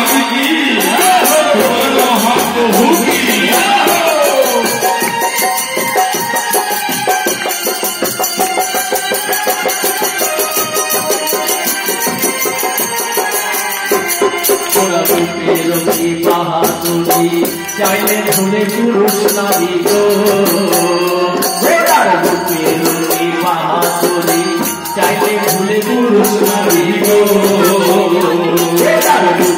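Devotional kirtan music: voices singing a chant over a fast, jingling percussion beat.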